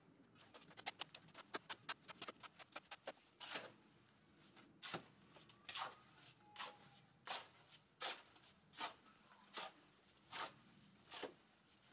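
Faint, regular scrapes of a small shovel working wet concrete in a wheelbarrow, about ten strokes spaced under a second apart, hand-mixing the batch. They are preceded by a quick run of light clicks and taps in the first few seconds.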